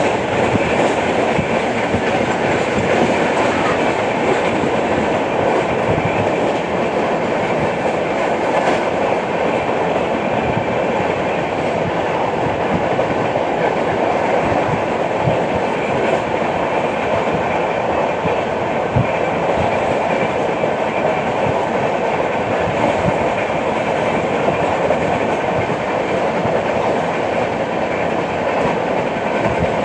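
Passenger train running at speed: a steady rumble of coach wheels on the rails with occasional clicks from the track.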